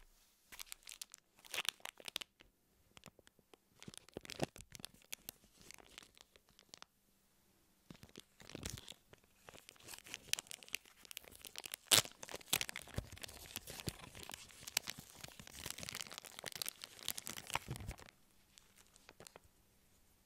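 Product packaging being torn open and crinkled by hand: an irregular run of tearing and crackling that grows denser in the second half, with one sharp snap about twelve seconds in, and stops a couple of seconds before the end.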